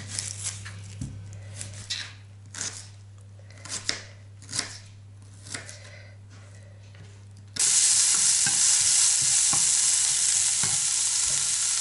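A knife cutting and dicing an onion on a bamboo cutting board, about eight irregular knocks. Then, about two-thirds through, a sudden switch to loud, steady sizzling of diced onion frying in a pan, stirred with a spatula.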